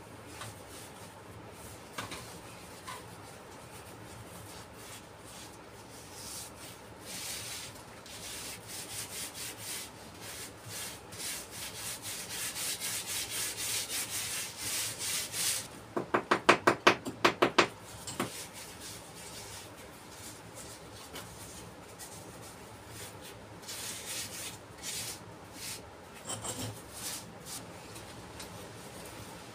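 Trowel scraping and rubbing across the mortar top of a stone washbasin base, in repeated strokes. About halfway through comes a quick run of about eight louder, rasping strokes, and a few more strokes follow near the end.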